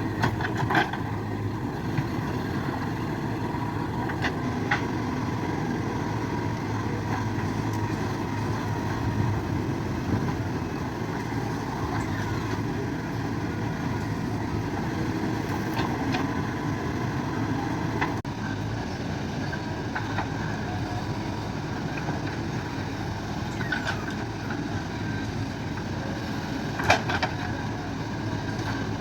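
JCB earthmover's diesel engine running steadily under work, with a few sharp knocks from the machine's work now and then, the loudest near the end.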